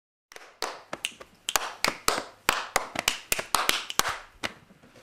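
Two people clapping their hands in an uneven pattern, about fifteen sharp claps mixed with softer, duller slaps, starting about a third of a second in and stopping shortly before the end.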